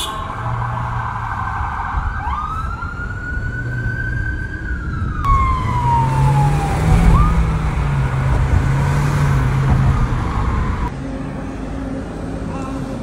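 Emergency-vehicle siren wailing in slow rising and falling sweeps over a low, steady traffic rumble. It breaks off abruptly about eleven seconds in.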